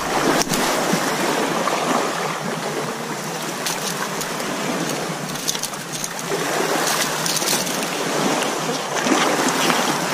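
Steady wash of sea water around a small boat.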